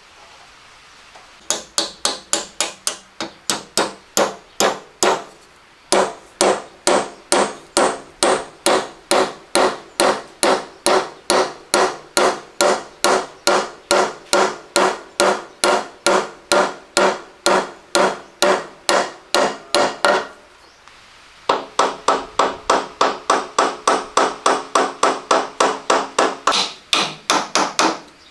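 Rapid hammer blows, about three a second, each ringing with a metallic tone. They come in three runs with short pauses between.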